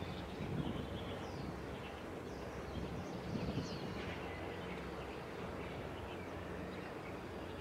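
Harbour background noise: a steady low engine hum with a few short, high bird chirps in the first half.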